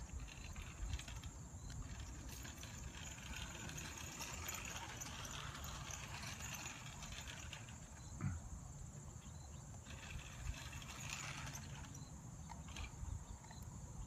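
Toy remote-control car driving on asphalt a good way off: a faint electric-motor whir and tyre hiss that stops and starts with the throttle, over a low rumble of wind on the microphone.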